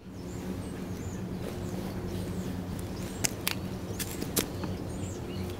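A steady low hum with faint bird chirps, and a handful of sharp clicks and taps between about three and four and a half seconds in as a Florsheim Essex leather dress boot steps onto a foam egg carton on concrete, before any crushing.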